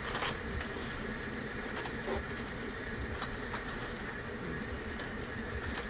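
Steady low rumble of a propane jet burner heating a 100-quart crawfish pot, with a few light rustles and clicks from a plastic bag being handled.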